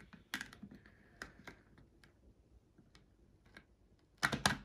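Scattered light clicks and taps of plastic as a helmet visor and anti-fog insert are handled and nudged into line by hand, with a quick cluster of louder clicks near the end.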